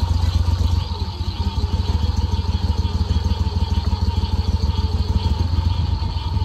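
Go-Devil mud boat motor running steadily, a loud low engine drone with a fast even beat.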